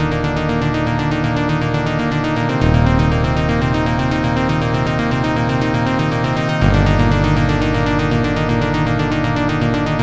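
Live electronic house music from a Roland T-8 drum machine and Roland S-1 synthesizer: a steady drum-machine beat with fast hi-hats over a synth bass that shifts note about every four seconds.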